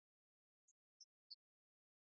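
Three short, very high-pitched beeps about a third of a second apart, each a step lower and louder than the one before. The beeps stand alone against complete silence.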